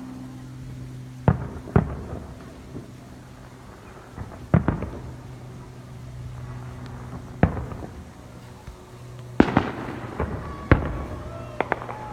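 Fireworks going off: about nine sharp bangs at irregular intervals, each with a short echoing tail, several coming close together near the end.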